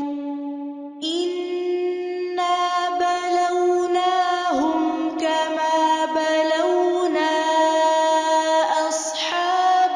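Melodic Quran recitation: a single voice chants in long, held, wavering notes. It trails off into a short breath pause and starts the next phrase about a second in.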